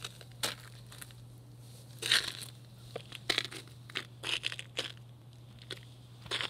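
Footsteps crunching on a thin layer of snow on wooden deck boards: a handful of short, irregular crunches, the loudest about two seconds in, over a steady low hum.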